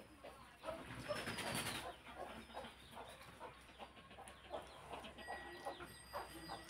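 Mouth sounds of eating rice and curry by hand: chewing and lip smacks, heard as many short wet clicks.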